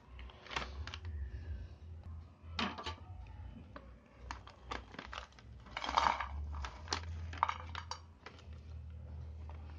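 Foil-lined snack wrapper crinkling as it is handled, and small wafer cubes tipped out onto a nonstick metal pan, landing with a scatter of light clicks and taps. The busiest rustle comes about six seconds in.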